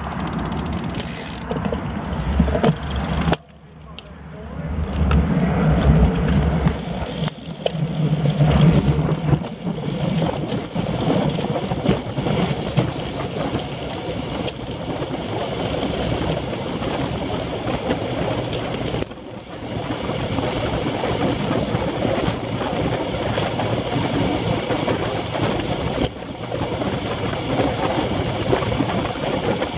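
Wind buffeting a bicycle-mounted action camera's microphone as a group of road bikes rolls along at speed, a continuous, gusty rushing that drops away briefly about three and a half seconds in and again around the middle.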